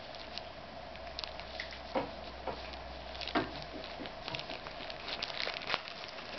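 Thin clear plastic bag crinkling and crackling in short, irregular clicks as a cat noses and bites at it.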